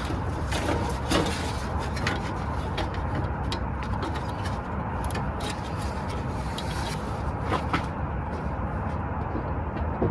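Light clicks and knocks of parts being handled over a steady low rumble of background noise.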